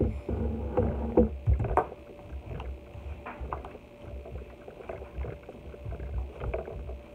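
Hands pressing and patting slime flat on a tabletop: irregular low thumps and bumps, with a few sharp slaps between one and two seconds in.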